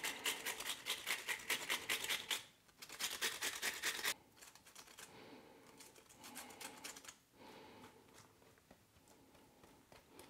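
Cucumber being grated on a coarse stainless-steel hand grater: quick rasping strokes in two runs with a short break between them, then much fainter scraping from about four seconds in.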